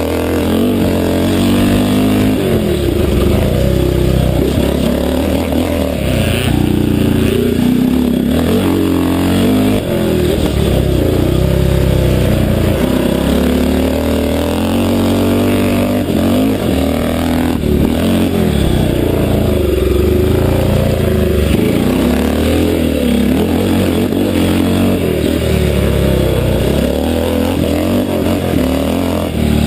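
Classic 500cc motocross bike's engine revving under hard riding, its pitch rising and falling again and again as the throttle is opened and shut, heard onboard with wind rushing past.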